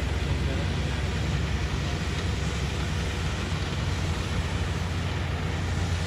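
Self-propelled swather (windrower) running while it cuts standing wheat: a steady low engine rumble with an even hiss over it.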